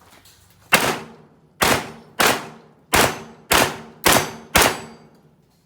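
Shotgun fired seven times in quick succession, the shots about half a second to almost a second apart, each with a short echoing tail.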